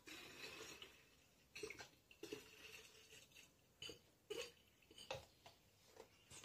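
Distilled water poured from an upturned plastic bottle into a plastic bottle of lemon-peel alcohol, heard as faint, irregular glugs and gurgles.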